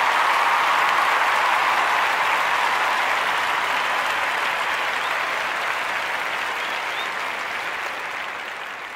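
Crowd applause, a dense steady clapping that gradually fades away.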